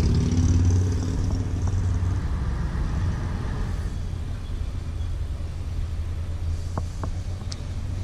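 Road traffic on the bridge overhead: a steady low rumble that slowly fades.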